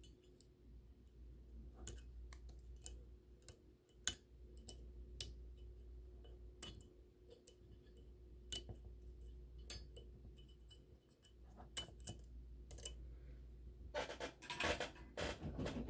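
Faint, scattered small clicks and taps of tools on the model locomotive's metal and plastic parts while wires are unsoldered from the truck's clips, with a busier burst of handling noise near the end.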